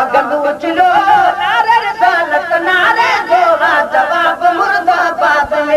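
Male voices singing a Sindhi devotional naat, the melody continuous with a wavering, ornamented pitch.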